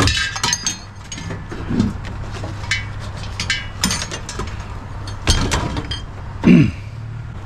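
Scattered clinks and knocks of hard objects being handled, some of them ringing briefly, over a steady low hum. A short voice-like sound comes about six and a half seconds in.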